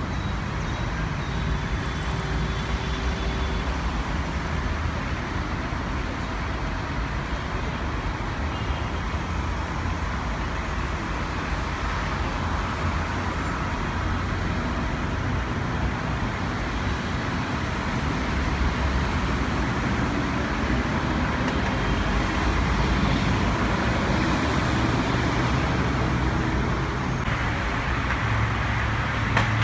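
Steady road traffic noise with a low rumble, growing a little louder in the second half, and a brief high whistle about ten seconds in.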